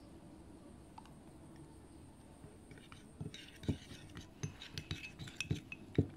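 Metal spoon clinking and scraping against a small ceramic bowl while stirring damp spice powder. Quiet at first, then a run of irregular clinks and knocks from about three seconds in.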